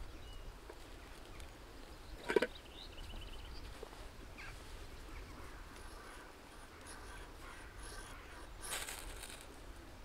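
Steel scraping along a ferro rod over tinder: a run of light scrapes, then one harder, longer strike near the end. A single short, harsh animal call sounds about two seconds in.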